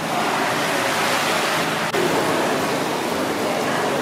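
Steady rushing and splashing of swimming-pool water.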